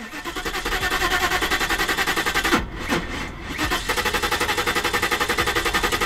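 Mercedes S500's V8 being cranked over by its starter motor in a fast, even pulse, with a brief break about two and a half seconds in, and not catching: the engine fails to start.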